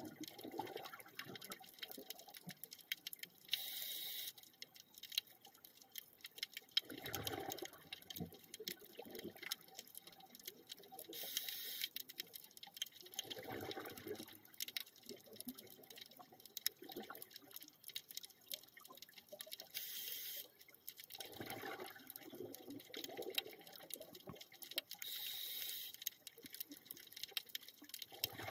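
Scuba diver breathing underwater through a regulator: about four breaths, each a short hissing inhale from the demand valve followed a few seconds later by a bubbling rush of exhaled air. A steady crackle of fine clicks from snapping shrimp on the reef runs underneath.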